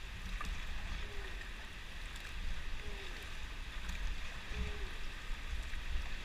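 Steady rush of river water around a rafting boat, with an uneven low rumble. A faint short falling note repeats about every two seconds.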